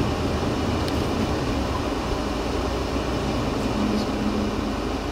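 Steady low rumble of traffic and wind in a snowstorm, with a vehicle driving on the snowy road.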